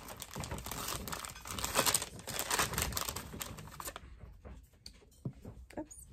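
A kraft paper gift bag being torn open and rustled by hand: crinkling, tearing paper for about the first four seconds, then a few light handling clicks.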